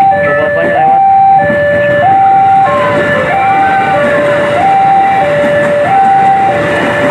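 Level-crossing warning alarm sounding a two-tone signal, a high and a low tone alternating about once every 1.2 seconds, over the running noise of a KRL commuter electric train passing close by on the tracks.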